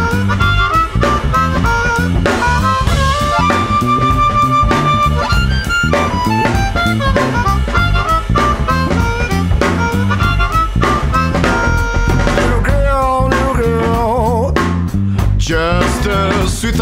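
Blues band music: a harmonica solo over drums and bass, with one long held note about three seconds in and wavering, bent notes near the end.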